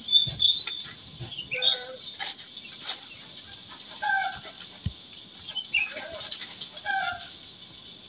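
Chickens clucking in short calls, every second or so, with small birds chirping high-pitched over them and scattered sharp clicks.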